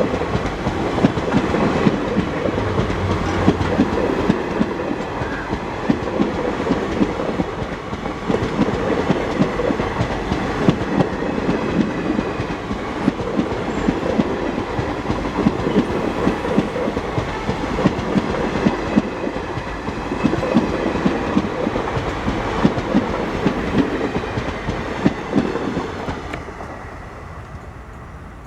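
Wheels of a long NMG rake (old coaches converted to car carriers) clattering over the rail joints as the train runs past, a dense, uneven stream of knocks that fades away near the end.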